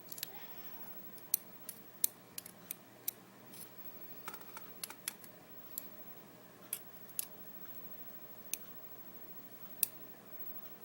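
Irregular light metallic clicks and taps of small lock parts being handled as a pin-tumbler lock cylinder is taken apart: pins, spools and springs being picked out and set down. About twenty short clicks, uneven in spacing, the sharpest ones in the first two seconds.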